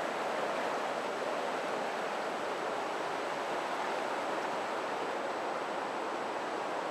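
Whitewater rapids on a rocky river rushing steadily, heard close up from a kayak sitting in the current.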